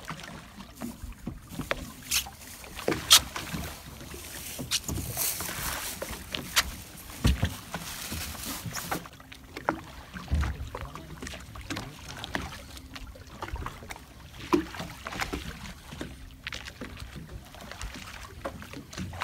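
Deck sounds of a small fishing boat drifting at sea: water splashing against the hull, with scattered sharp knocks and clicks. A faint steady hum runs through the second half.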